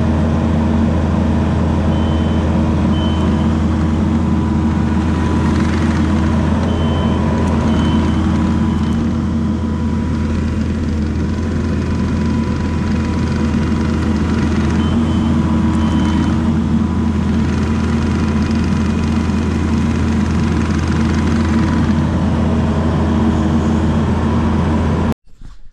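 Kubota compact track loader's diesel engine running steadily, with its reversing alarm beeping in short runs of two or three beeps several times. The engine sound cuts off suddenly near the end.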